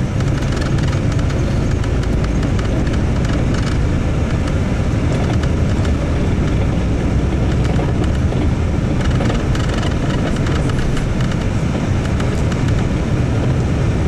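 Steady rumble of a bus's engine and tyres heard from inside the cabin, with scattered rattles as it jolts along a rough road.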